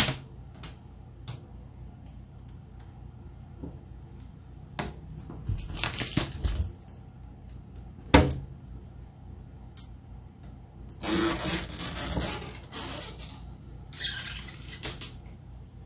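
Protective plastic film being peeled off a new PC case in several drawn-out pulls, each a crackling rip, with small clicks and a sharp tap between them.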